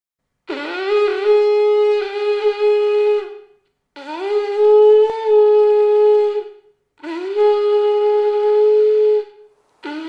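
A horn-like wind instrument blown in long held notes, three times, each scooping up into the same steady pitch, with short silences between; a fourth note starts near the end.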